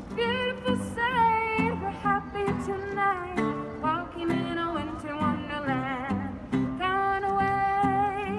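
Music: a song with a high sung melody that wavers with vibrato, over plucked guitar notes.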